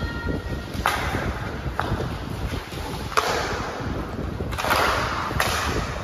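Wind buffeting the microphone in an uneven low rumble, broken by several sharp knocks and short noisy bursts, one every second or so.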